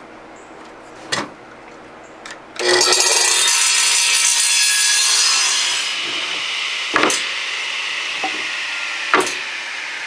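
Radial arm saw crosscutting a 2x6 board. The blade bites in loudly about two and a half seconds in and cuts for about three seconds, then the saw runs on more quietly. Sharp knocks sound about a second in and twice near the end.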